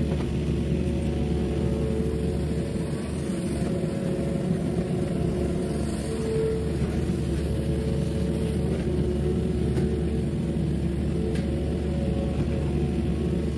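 Mini excavator's diesel engine running steadily under working load while it digs and swings buckets of soil.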